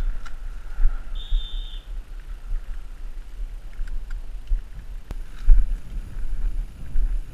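Wind buffeting the microphone, with uneven low rumbling. About a second in, one short high-pitched steady tone sounds.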